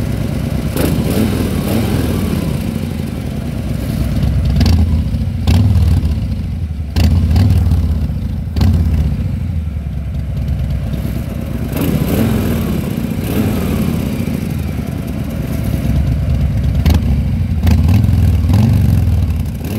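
Harley-Davidson 114 cubic inch V-twin running through Jekill & Hyde slip-on mufflers. It idles and is blipped on the throttle several times, each blip a short, louder swell.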